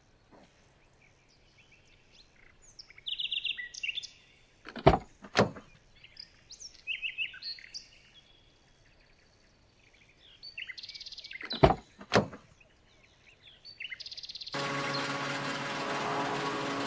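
Small birds chirping in short bursts, with two pairs of sharp clicks midway. About two seconds from the end a steady hum starts as the miniature petrol dispenser begins running.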